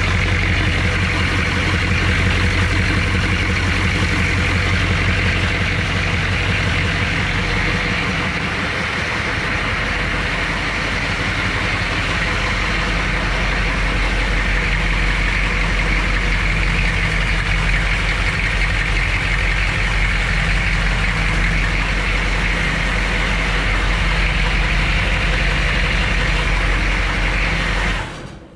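HMMWV M998A1's 6.2-litre V8 diesel engine running steadily, newly brought back to life after restoration; the sound cuts off abruptly near the end.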